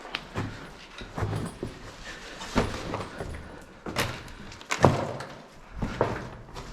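Irregular knocks and thuds, about five of them spaced unevenly; one about five seconds in is the loudest.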